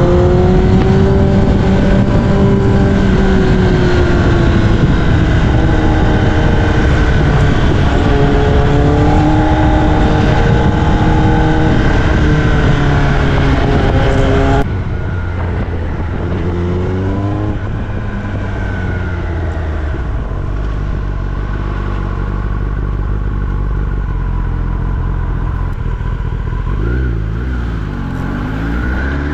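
Kawasaki ZX-10R inline-four running through an Austin Racing aftermarket exhaust, its revs rising and falling as it is ridden. About halfway through the sound drops suddenly to a quieter, lower-revving note, with a short blip of revs near the end.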